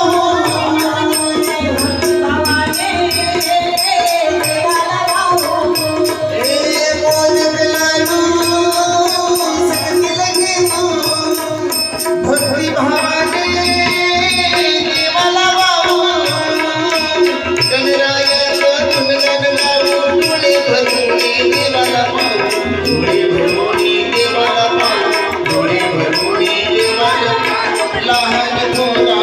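Instrumental passage of Marathi devotional music: melodic lines over drums, with a fast, even beat of high percussion.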